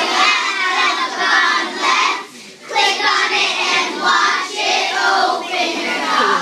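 A group of young children singing together, with a short break about two seconds in before they carry on.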